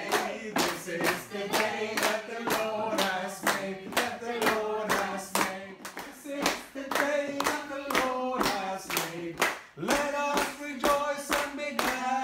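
People singing together while clapping their hands in time, a steady beat of about three claps a second under the melody.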